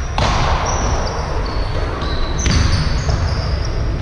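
Basketball game play on an indoor court: a basketball bouncing, with sneakers squeaking on the floor in short, high chirps over a steady low rumble.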